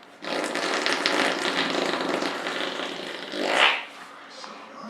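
Radio-controlled car running: a steady mechanical whirring and rumbling that swells about three and a half seconds in, then drops away.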